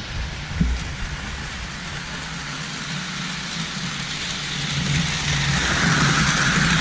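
Toy train running steadily on its track, growing louder about five seconds in.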